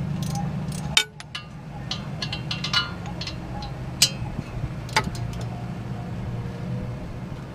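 Hand tools working on the wheel hub bolts: sharp metallic clicks and clinks, the loudest about one, four and five seconds in, with a short run of quicker clicks near three seconds. A steady low hum lies underneath.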